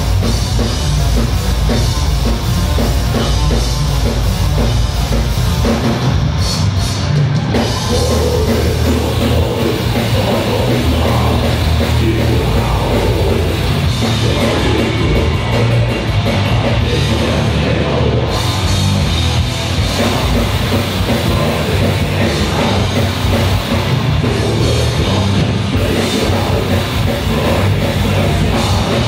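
Death metal band playing live through the PA: heavily distorted guitars and bass over pounding drums, steady and loud with no break.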